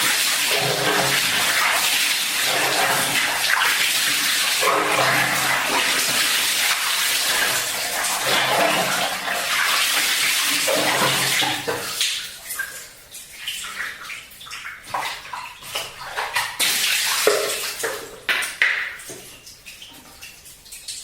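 Water splashing during a dipper bath (mandi with a gayung). Water rushes and splashes steadily for about twelve seconds, then breaks into separate splashes and drips that die away.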